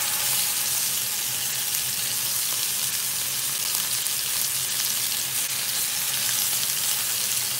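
Seasoned beef chunks sizzling loudly as they sear in a hot skillet; the sizzle swells right at the start as more meat goes into the pan, then holds steady.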